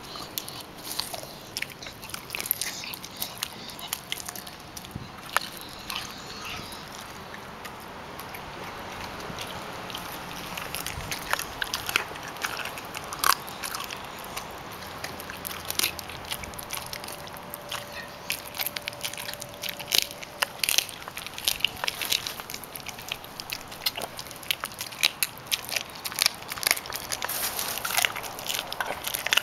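Dog chewing a raw chicken leg, with irregular sharp crunches that come thicker in the second half.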